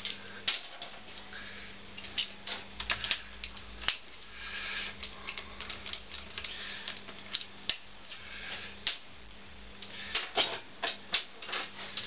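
Irregular sharp metallic clicks, taps and short scrapes of hand tools and loose parts being worked on a motorcycle engine, as bolts come out and the rear engine cover is freed.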